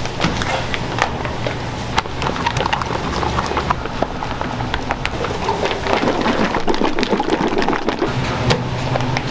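Chicken pieces deep-frying in hot oil: a dense, steady crackling sizzle with sharp pops, over a low hum.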